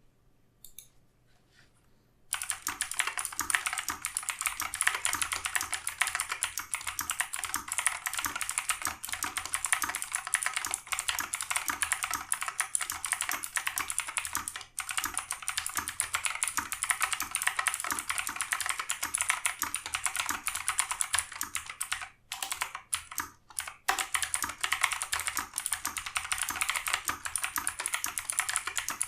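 Fast, continuous typing on a Razer BlackWidow X Tournament Edition Chroma with clicky Razer Green switches under low-profile keycaps: a dense run of sharp key clicks. It starts about two seconds in and pauses briefly twice, about halfway and again about three quarters of the way through.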